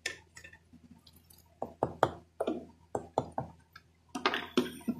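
Steel kitchen utensils clinking and knocking as they are handled: a quick run of sharp clanks with short ringing tails, starting about a second and a half in.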